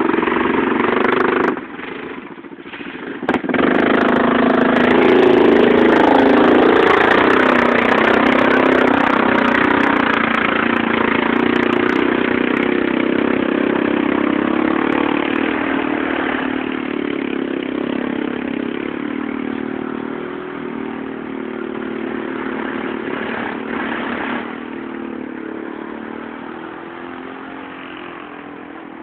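ATV engines revving hard under load while spinning through deep mud, the engine note rising and falling. The sound dips briefly about two seconds in, is loudest a few seconds later, then slowly fades.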